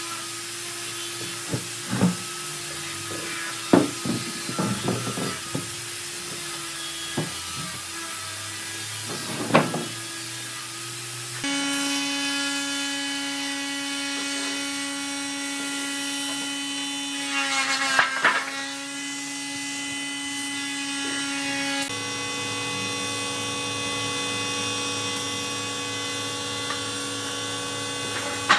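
Woodworking power tools running with a steady, even hum, and knocks and taps of wood, most of them in the first ten seconds. The pitch of the hum changes abruptly twice.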